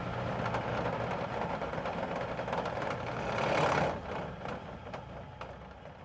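Helicopter flying, its engine and rotor noise swelling to a peak a little past halfway, then dropping away and fading out.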